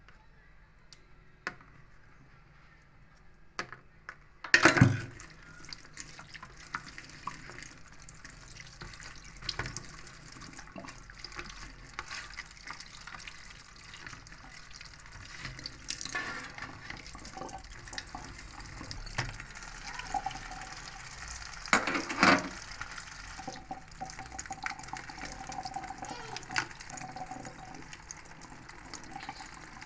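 Kitchen tap water running into a stainless steel sink while produce is rinsed by hand in a plastic colander, with scattered clatters. The water comes on with a loud knock about five seconds in, and another loud clatter comes about twenty-two seconds in.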